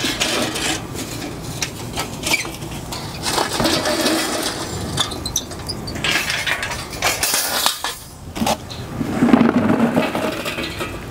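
Charcoal clattering and clinking into a smoker's metal charcoal ring as coals are dumped from a chimney starter, with more charcoal rattling out of a bag near the end.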